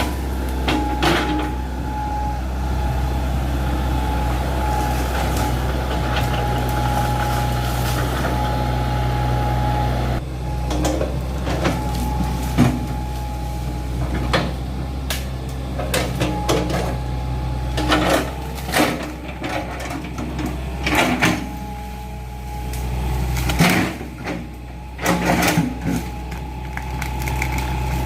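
Hydraulic excavator's diesel engine running under working load, with a steady high whine and repeated short clanks and knocks as the bucket digs a drainage trench. The engine note shifts about a third of the way in and again near the end.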